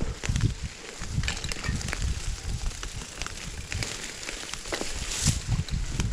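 Mountain bike being ridden along a dirt trail: irregular low rumbling with scattered clicks and rattles from tyres and bike.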